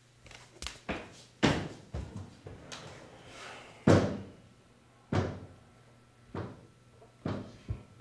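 A series of heavy thumps and bangs at irregular intervals, each with a short ringing tail, the loudest about a second and a half and four seconds in.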